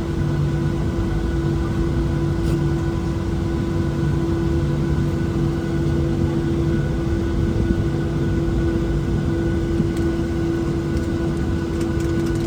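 Boeing 737-700's CFM56-7B turbofan engines heard from inside the cabin during the takeoff run: a steady, loud drone with a held mid-pitched tone over a pulsing lower hum and rumble.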